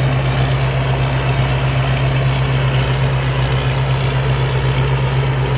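Thai Seng combine harvester working a rice field, its engine running steadily under load as a deep, even drone.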